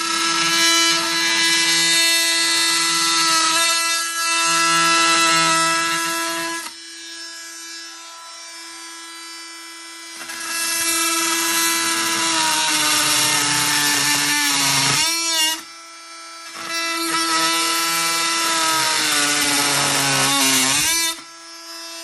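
Milwaukee M12 FUEL oscillating multi-tool making three plunge cuts into a wooden beam. Loud buzzing while the blade is in the wood, and quieter free-running between cuts. The motor pitch sags under load near the end of the second and third cuts.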